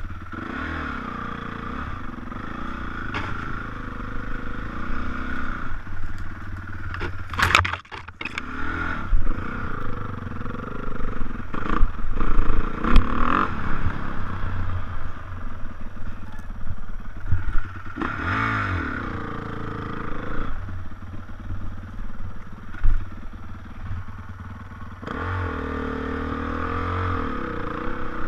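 Dirt bike engine revving as it is ridden across grass, its pitch rising and falling again and again as the throttle opens and closes, heard from a helmet-mounted camera. A brief sharp burst of noise comes about seven and a half seconds in.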